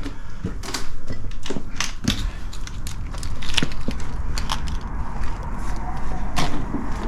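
Irregular crunching clicks and knocks, like debris and loose objects being shifted and stepped on, over a steady low rumble.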